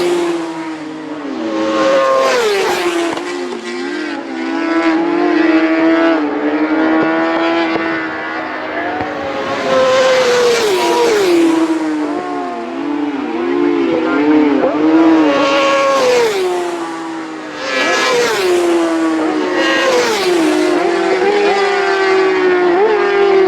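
Racing motorcycles at full throttle on a closed public-road course: engines revving up through the gears, the pitch climbing and then dropping sharply at each shift, as several bikes pass one after another, each swelling and fading away.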